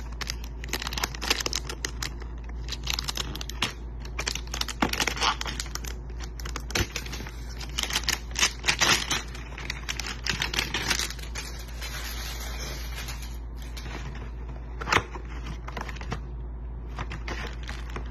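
Hands handling and opening a cardboard Donruss Optic trading-card hanger box: an irregular run of sharp clicks, scrapes and papery crinkling and tearing.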